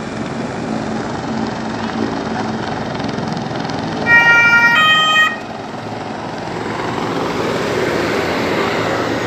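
Two-tone emergency-vehicle siren sounding one low-then-high cycle, about a second long, some four seconds in, over steady outdoor background noise that grows a little louder near the end.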